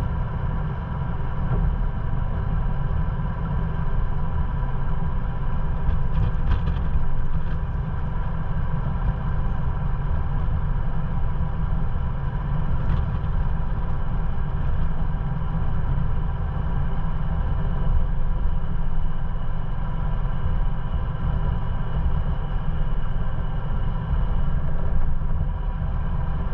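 Ford Bronco's engine running steadily as it crawls slowly along a rocky dirt trail, with a constant low rumble and a few faint knocks about six to seven seconds in.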